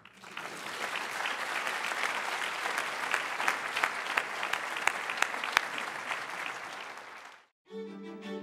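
Audience applauding: many people clapping steadily, fading out about seven seconds in.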